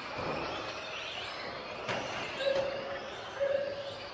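Several Tamiya TT01E electric radio-controlled cars running on an indoor carpet track, their motors and gears whining up and down in pitch as they accelerate and slow for the corners. A sharp knock comes about two seconds in, and two short steady beeps sound in the second half.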